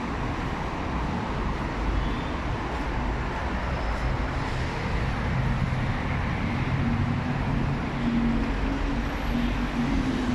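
Steady road traffic noise from a busy city street, with a low hum coming up more clearly in the second half.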